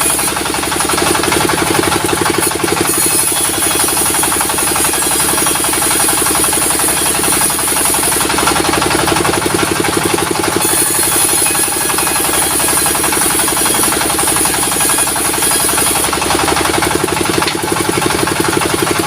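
Sawmill machinery running: an engine chugging steadily with a rapid, even pulse, and a high-pitched hiss that comes and goes several times as the saw works.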